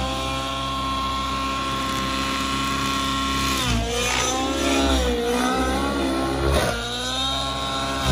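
Nitro-fuelled RC helicopter's glow engine and rotor running at high revs as a steady whine. Its pitch dips and climbs back about halfway through and glides again near the end as the helicopter is thrown through aerobatic manoeuvres.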